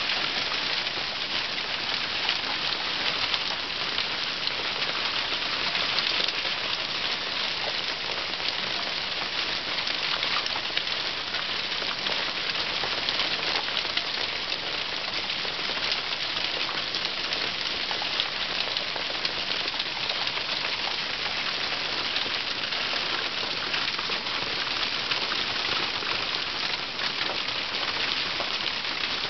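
Nearly marble-sized hail falling steadily, a dense patter of countless small ice pellets striking the ground and yard surfaces.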